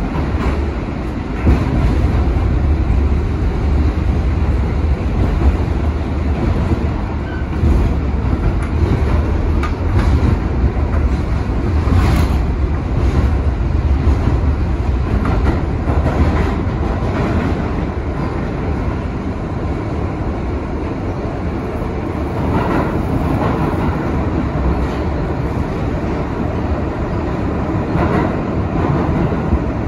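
An R62A New York City subway car running at speed through a tunnel, heard from inside the car: a loud, steady rumble of wheels on rail, broken by a few sharp, irregularly spaced clacks.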